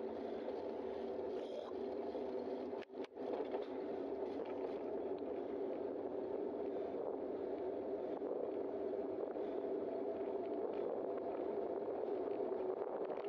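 Steady rush of wind and tyre noise from a moving bicycle, picked up by a bike-mounted camera's microphone. The sound cuts out twice briefly a little under three seconds in.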